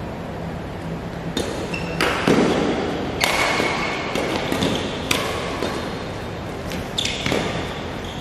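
Badminton rackets hitting a shuttlecock back and forth in a rally: about five sharp hits one to two seconds apart, several with a brief ringing ping from the strings, echoing in a large hall. A duller thud comes just after the second hit.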